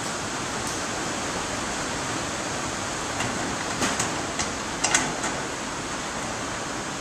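Steady background hiss, with a few light clicks about four to five seconds in as the metal TV mount and its M8 bolts are handled by hand.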